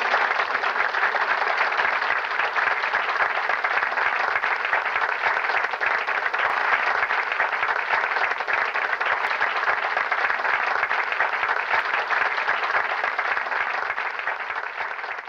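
Audience applauding steadily, many hands clapping at once, tapering slightly near the end.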